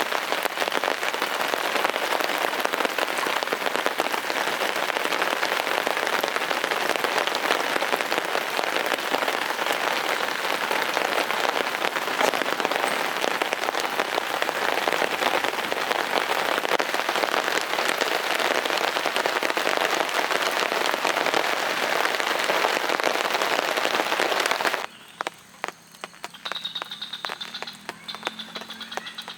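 Heavy rain falling steadily. About 25 seconds in the rain cuts off abruptly, leaving a quieter background with scattered clicks.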